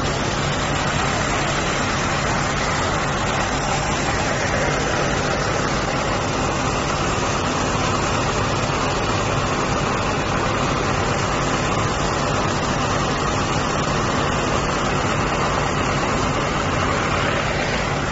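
Diesel engine of a portable sand dredger running steadily while driving the sand pump: a constant low hum under a loud, even rushing noise.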